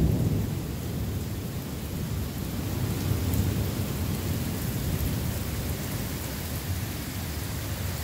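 Heavy rain pouring down in a thunderstorm, a steady rushing noise with a deep low rumble underneath.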